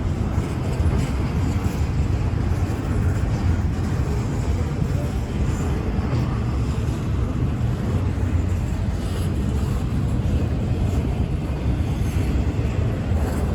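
Freight train rolling past a grade crossing: a steady low rumble with no horn.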